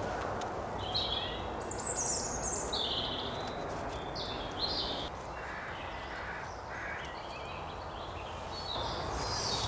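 Small birds singing, a series of short, separate high chirping phrases over a steady outdoor background hiss.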